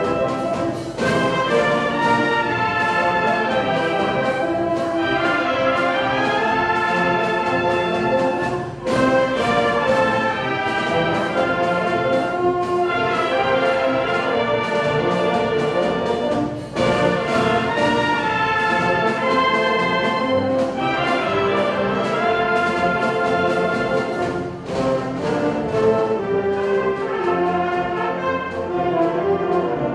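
Wind band playing a march: euphoniums and other brass over a steady drum beat, with a brief break between phrases about every eight seconds.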